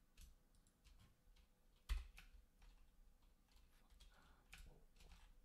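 Sparse, faint computer keyboard keystrokes, with one louder key press about two seconds in.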